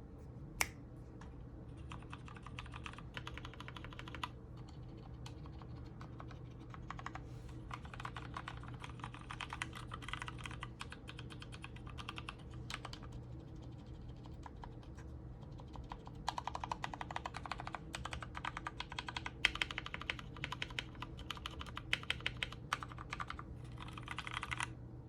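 Typing on a mechanical keyboard with a brass plate and tofu case, its Cherry MX Black linear switches lubed and filmed: runs of fast keystrokes in several spells, busier and louder in the last third, with a few harder single presses standing out.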